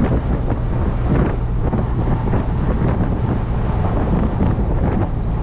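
Hino cab-over box truck's diesel engine running steadily as the truck drives, heard from inside the cab. A steady low engine drone sits under road and wind noise.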